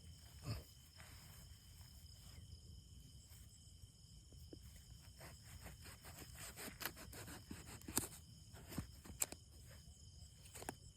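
Faint scattered clicks and scrapes, a knife being worked into a pumpkin, over a steady chirring of crickets.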